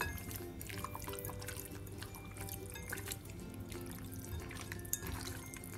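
Soft wet squelching and small clicks of a hand kneading raw chicken pieces in a curd-and-spice marinade in a glass bowl, over soft steady background music.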